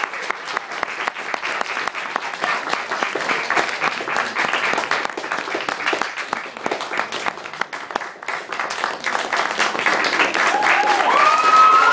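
Audience applauding, many hands clapping steadily. Near the end a voice calls out over the clapping, rising and then falling in pitch.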